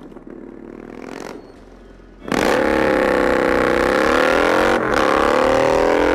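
Custom Yamaha Bolt XV950's V-twin engine, quiet at first, then suddenly revving loud about two seconds in as the motorcycle pulls away. Its pitch dips and rises again.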